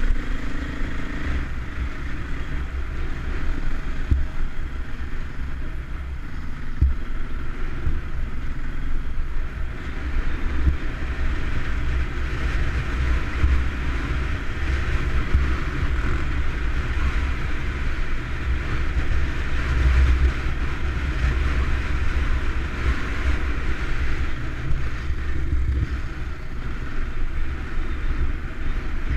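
KTM enduro dirt bike engine running as the bike rides along a rough stony track, under heavy wind buffeting on the camera's microphone.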